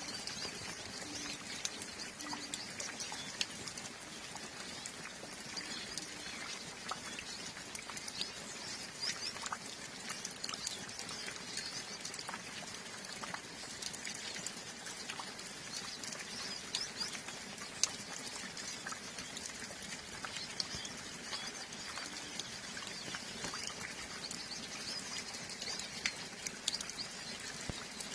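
Light, steady rain pattering with scattered drips, under the constant high twittering and chattering of a flock of hooded siskins (Brazilian pintassilgos).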